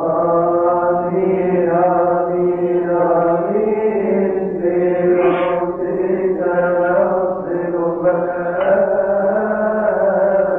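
Coptic liturgical chant: a single man's voice singing long, held melismatic notes, sliding slowly from one pitch to the next without a break.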